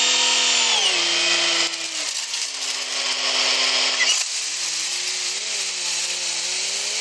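Husqvarna two-stroke chainsaw running at high revs, its pitch dropping and recovering several times as the chain loads and unloads in the wood.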